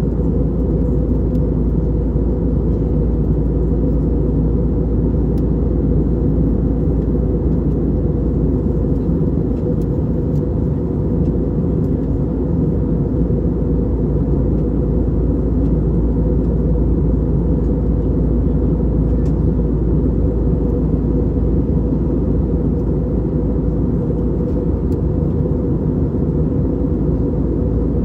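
Steady low cabin rumble inside an Airbus A320neo, from its CFM LEAP-1A engines and the airflow past the fuselage, holding an even level throughout.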